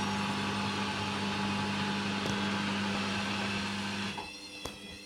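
Hoover Dynamic washing machine on its final spin: the motor and drum run with a steady loud hum and whirr. About four seconds in the hum stops abruptly, leaving a quieter whirr, and a single click follows shortly after.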